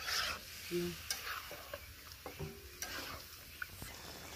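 Metal spatula stirring and scraping beef chunks frying in oil in a two-handled metal karahi, with a soft sizzle and scattered small clicks of metal on metal.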